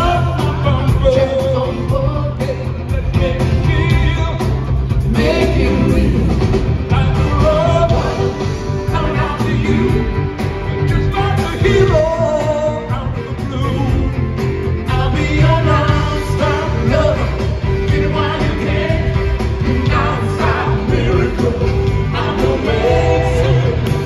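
Live pop band playing, with a male lead vocalist singing over drums, bass, electric guitars and keyboards, amplified through the hall's sound system.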